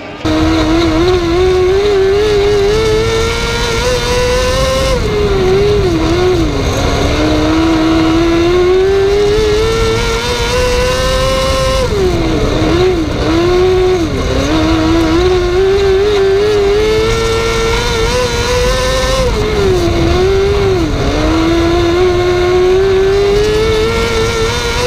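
Wingless 600 micro sprint car's 600cc motorcycle engine at racing speed, heard from the cockpit. Its note climbs along each straight and drops sharply into each corner, with about one lap every seven to eight seconds.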